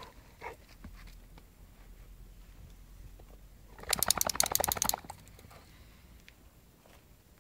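A boxer dog shaking itself off after rolling on the ground: a fast, even rattle of flapping ears and jangling harness lasting about a second, near the middle.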